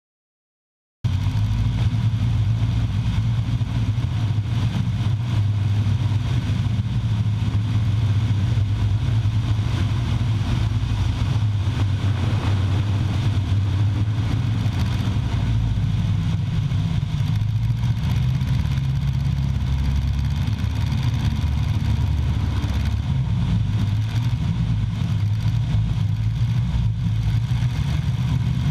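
An engine running steadily at an even speed. It starts abruptly about a second in, after a moment of silence.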